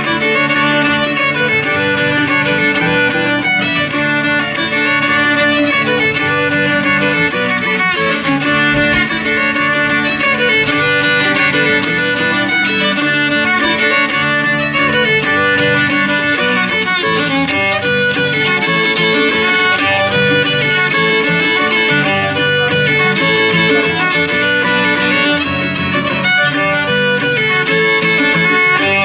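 Acoustic string band playing a lively instrumental led by fiddle over strummed acoustic guitar, in an unusual 7/8 time signature.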